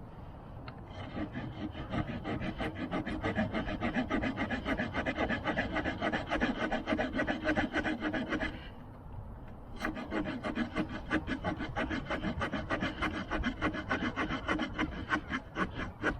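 The small saw blade of a Victorinox Ranger Swiss Army knife cutting a wooden stick in quick back-and-forth rasping strokes. It stops for about a second a little past halfway, then starts sawing again.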